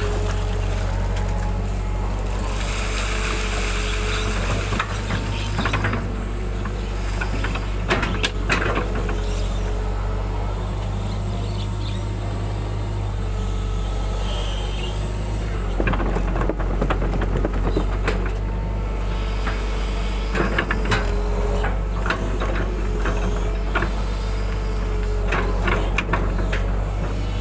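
Excavator's diesel engine running steadily with a steady hydraulic whine, and clusters of short clanks and scrapes from the bucket working, about a third of the way in and repeatedly through the second half.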